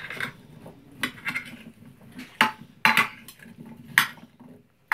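Metal spoons clinking and scraping against a glass baking dish as oiled sweet potato chunks are tossed, with several sharp clinks about one a second.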